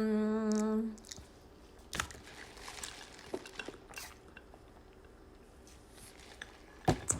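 A woman's long, steady hummed "hmm" held on one pitch, stopping about a second in. After it come only faint scattered clicks and soft mouth and handling noises, with a sharper click near the end.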